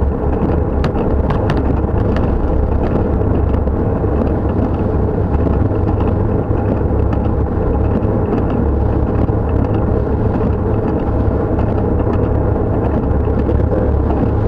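Steady in-cab driving noise of a Dodge Dakota pickup: a constant low engine and road rumble, with a few light ticks in the first couple of seconds.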